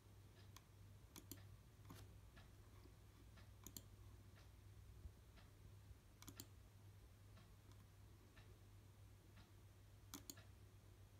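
Near silence: a faint steady low hum with scattered faint clicks at irregular intervals, the strongest pair about ten seconds in.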